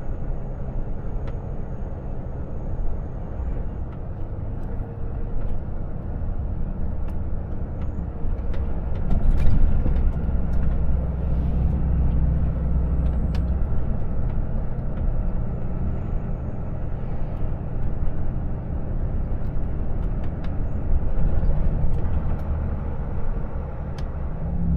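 Volvo FH 460 truck's six-cylinder diesel engine and tyre noise as it drives along at town speed and slows down, heard from inside the cab, with a steady low rumble and a few faint clicks and rattles.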